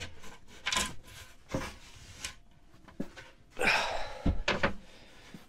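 Plywood lid being lifted out of a pine-framed box seat: scattered wooden knocks and scrapes, a louder scraping rustle nearly four seconds in, then a couple of low thumps as it is handled and set down.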